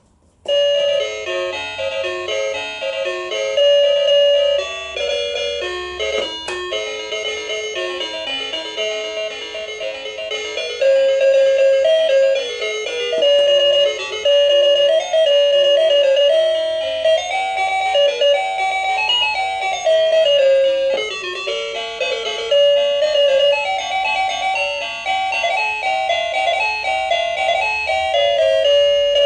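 Baby play gym's electronic toy piano playing a simple, chiming children's melody through its small speaker, set off by a key press just as the tune starts.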